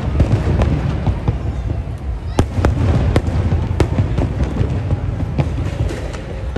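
Aerial fireworks: an irregular series of sharp bangs from bursting shells over a continuous low rumble.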